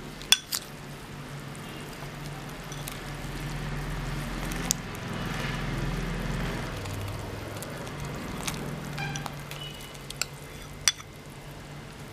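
Fried garlic cloves tipped from a glass bowl into boiling tamarind curry in a kadai and stirred in with a spatula: a handful of sharp clinks of glass and utensil against the pan, and a louder stretch of sloshing and stirring in the middle. A steady low hum runs underneath.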